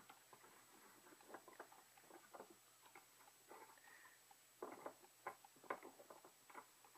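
Faint clicks and light taps of small glass objects, a glass boot and a faceted glass piece, being handled and knocked together while being balanced, with a closer run of taps a little past the middle.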